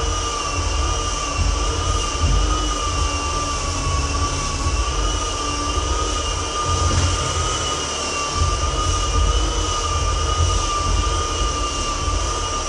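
Floor edger running steadily with a high, constant motor whine as its spinning sanding disc grinds the old finish off the hardwood along the floor's edges, with a low rumble that swells and fades as it is worked.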